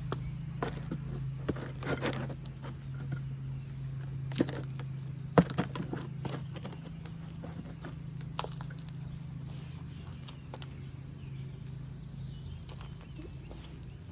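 Scattered light knocks and taps, the sharpest a little over five seconds in, over a steady low hum.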